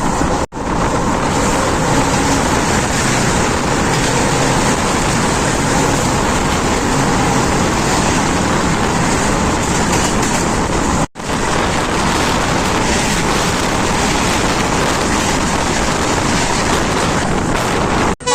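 Loud, steady rushing noise of a train running at speed, heard from on board: wheels on rail and wind. The sound drops out for an instant twice, about half a second in and again about eleven seconds in.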